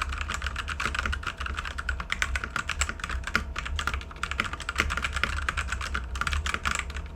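Fast, continuous typing on a Machenike K500 mechanical keyboard fitted with Huano red linear switches and PBT keycaps: a dense, unbroken stream of keystroke clacks.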